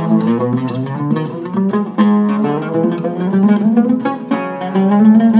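Solo oud with a cedar soundboard and African mahogany back, played unaccompanied: a melodic line of quick plucked notes, each struck note ringing with overtones.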